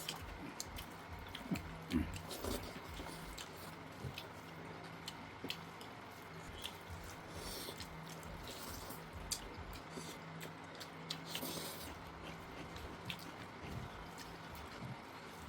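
Mouth sounds of eating pork curry: chewing, with many small wet clicks and smacks scattered throughout and a few short louder bursts.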